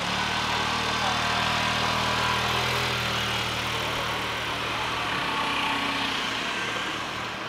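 Small 125 cc motor scooter's engine running as it pulls away, a steady note that shifts about five seconds in and then fades near the end.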